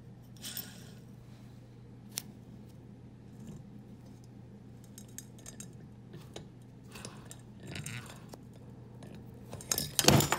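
Crankshaft main bearings of a two-stroke twin jet-ski engine turned by hand to check them: light metallic clicking and rattling, with a louder rattle near the end.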